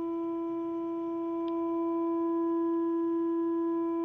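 A single steady droning tone with a stack of overtones, holding one pitch without change, presented as the 'true sound of an alien contact'.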